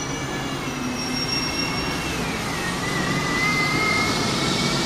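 Single-deck buses running on the road, engine and drivetrain noise with a high whine that dips in pitch about halfway through and then holds steady as the sound grows a little louder.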